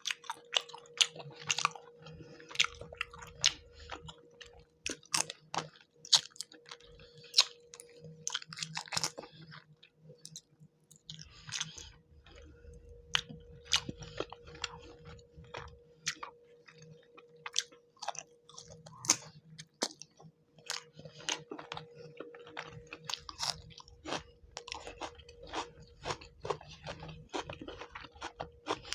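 Close-miked chewing and biting of a fish curry and rice meal, with frequent sharp wet mouth clicks and crunches in an irregular rhythm.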